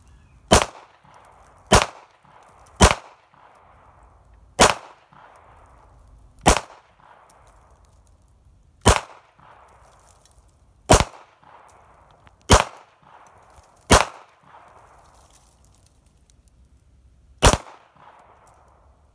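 Pistol fired in slow, single shots, about ten in all, spaced one to three and a half seconds apart. Each is a sharp crack followed by a short echo.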